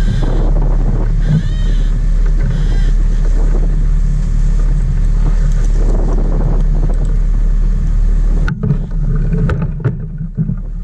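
Sport-fishing boat's engine running steadily while trolling: a low drone with a hiss of wind and water over it. About eight and a half seconds in, the hiss drops away and a few short knocks follow.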